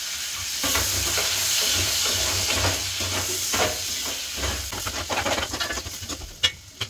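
Chopped onions sizzling as they fry in a stainless steel pan, with a steel spoon scraping and clinking against the pan as they are stirred. The sizzle thins near the end, and one sharp clink sounds just before the end.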